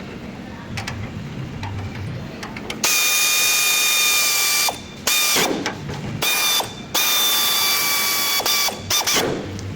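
A power tool's motor run in four bursts of differing length, each a steady whine over a hiss, one spinning up with a brief rise in pitch as it starts. The bursts begin about three seconds in, after a stretch of faint rumble and light ticks.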